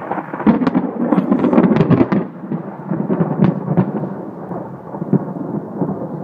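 Thunder: a peal that sets in suddenly and crackles loudly for about two seconds, then rolls on as a lower rumble with scattered cracks.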